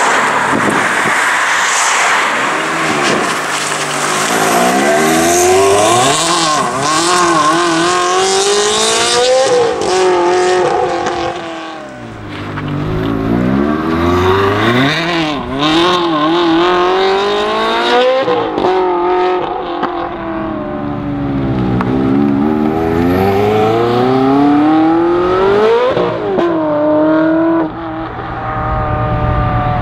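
Ferrari 360 Challenge Stradale's V8 engine revving and accelerating hard, its pitch climbing and dropping sharply many times with throttle blips and gear changes.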